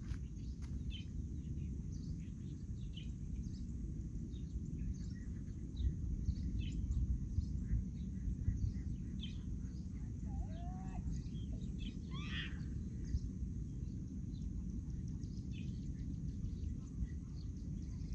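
Outdoor ambience: a steady low rumble with small birds chirping in short scattered notes throughout, and a couple of longer curving calls about two-thirds of the way through.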